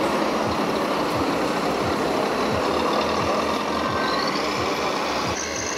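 Radio-controlled model construction machines and trucks at work: a steady engine-like drone with a regular low pulsing, over the hubbub of a crowded hall. The background changes abruptly near the end.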